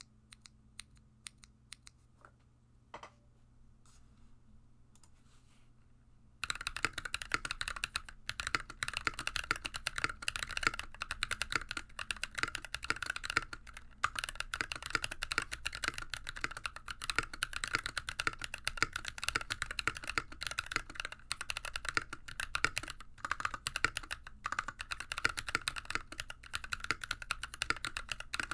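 Mechanical keyboard keystrokes: a few separate key presses for the first six seconds or so, then fast continuous typing that starts suddenly. The keyboard is an NK65 Entry Edition with a polycarbonate case, GMK keycaps and Glorious Panda tactile switches lubed with Krytox 203 and GPL 105 springs.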